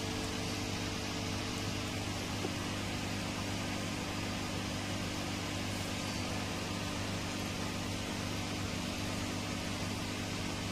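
Steady mechanical hum with an even hiss, unchanging throughout, like an electric fan or air conditioner running in the room.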